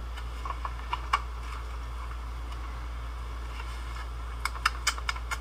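Scattered light clicks and taps, a few about a second in and a quick cluster near the end, over a steady low electrical hum.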